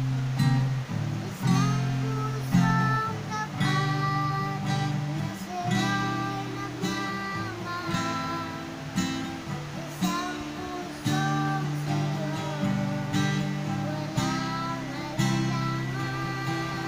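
Acoustic guitar strummed in steady chords, about one stroke a second, with a young girl singing a melody over it.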